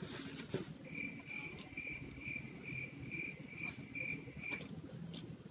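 A cricket chirping in an even series of short pulses, between two and three a second, starting about a second in and stopping shortly before the end.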